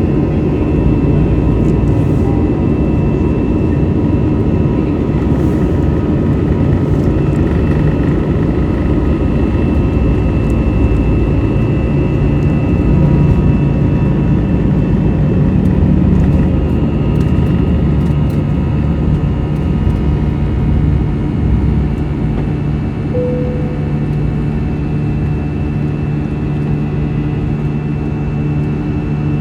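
Cabin noise of an Airbus A321 with twin CFM56 turbofan engines: a loud, steady jet drone with a deep rumble and a whine on top.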